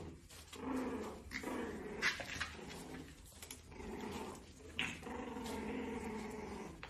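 French bulldog puppies grunting and growling softly at play, in several short runs and one longer stretch near the end, with a few sharp clicks.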